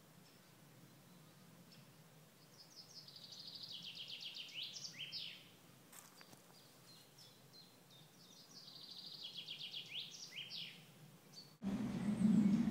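A songbird sings the same phrase twice: a fast run of quick repeated high notes that swells and ends in a short flourish, over faint woodland background. Near the end the sound cuts abruptly to a much louder, steady low rumble.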